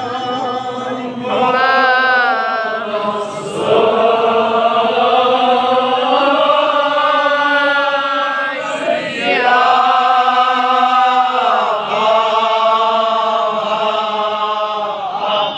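A man chanting a Kashmiri marsiya, a mourning elegy, in long, drawn-out melodic phrases. Each note is held for a few seconds, with short breaks between phrases.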